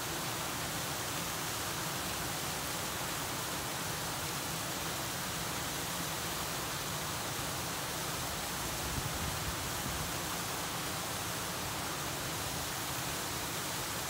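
Gentle waterfall on a stream: falling water rushing in a steady, even hiss that does not change in level.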